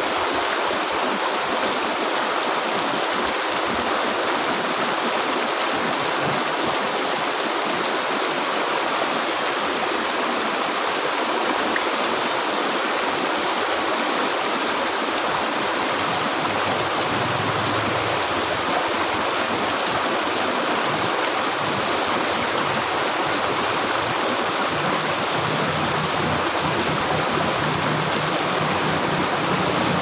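Shallow, rocky river flowing over boulders in small rapids: a steady rush and babble of water.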